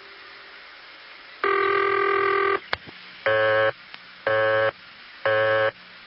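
Automatic Electric tone plant's ring and busy signal heard over an old phone line: one buzzy ring burst about a second and a half in, a click, then the busy signal, a buzzy tone pulsing about once a second.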